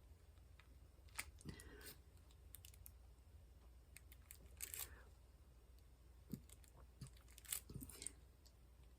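Faint, scattered small clicks and brief crinkly rustles of diamond painting work: resin drills being picked up and pressed onto the canvas, with the plastic film and tray rustling.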